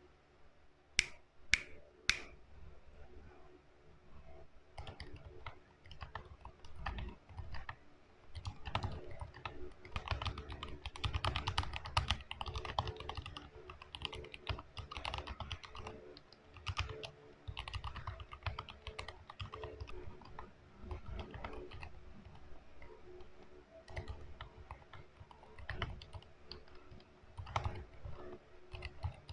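Typing on a Tada68 mechanical keyboard with Cherry MX Silent Black linear switches, whose rubber dampers on the stem soften bottoming out and return. Keystrokes come in dense, irregular runs, after three louder sharp clicks about a second in.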